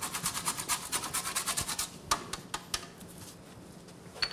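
A whole nutmeg rasped quickly against a metal box grater, about nine strokes a second, slowing to a few last scrapes after about two seconds. A light tap near the end.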